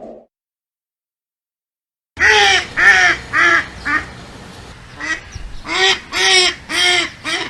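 Waterfowl calling: loud, short nasal calls, each rising and falling in pitch, starting about two seconds in. They come in a run of about four, a short pause, then another run of about five.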